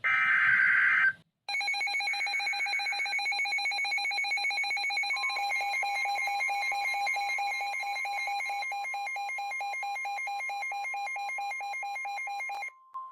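An Emergency Alert System SAME data burst, a harsh digital screech lasting about a second, then a weather radio receiver's alarm beeping rapidly in a shrill pulsing tone. About five seconds in, the steady 1050 Hz NOAA Weather Radio warning tone joins it. Both cut off near the end, announcing a new severe thunderstorm warning.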